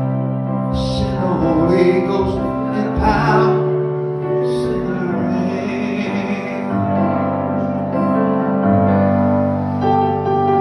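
Electric keyboard playing slow held chords, with singing over it for the first few seconds.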